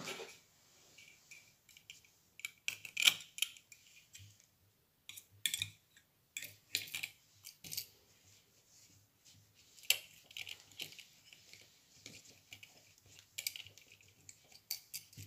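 Handling noise from a metal kiss-lock purse frame and binder clips on a crocheted bag: irregular small clicks, taps and rustles. The sharpest clicks come about three seconds in and again near ten seconds.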